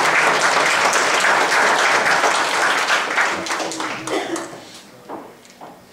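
Church congregation applauding, a dense patter of many hands clapping that thins out and dies away over the last two seconds.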